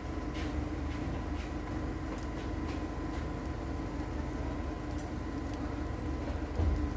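Stew cooking on a charcoal stove: scattered small pops and crackles over a steady low rumble and hiss, with a short low bump near the end.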